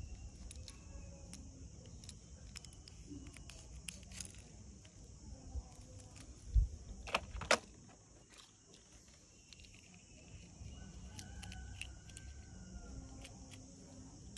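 Small toy cars clicking and clattering against a plastic carrier case as they are handled and set into its compartment, with a couple of sharper clacks about seven seconds in.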